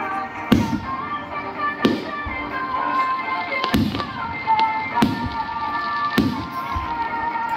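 Aerial firework shells bursting, five booms about a second and a half apart, over music playing steadily.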